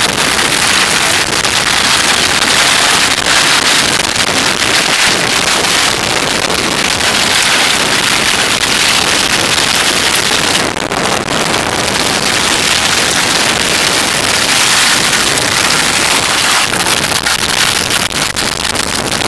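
Steady, loud rushing wind noise on the microphone, with the sound of a moving vehicle.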